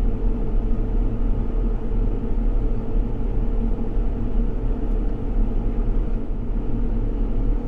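John Deere S690 combine running as it harvests wheat, heard from inside the cab: a steady low drone of engine and threshing machinery.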